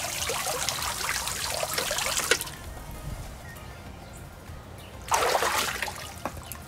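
Small pond fountain spraying, its water pattering back onto the pond surface, cutting off abruptly about two and a half seconds in as the fountain is shut off to turn down its flow valve. A short splash of a hand in the pond water follows about five seconds in.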